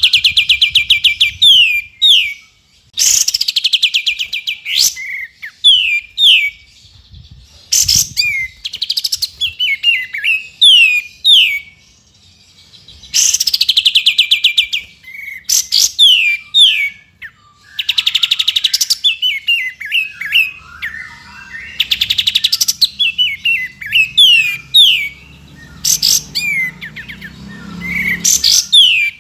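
Olive-winged bulbul (kapas tembak) singing. Bursts of fast rattling trills slide down in pitch, each followed by a few short, clear, downward-slurred whistles, and the phrase repeats every few seconds.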